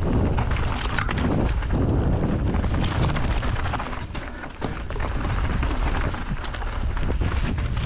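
Canyon Strive CFR enduro mountain bike descending a rough trail: wind buffeting the camera's microphone with tyre rumble and frequent rattles and knocks from the bike over rocky ground. The noise eases briefly about halfway through, ending in a sharp knock.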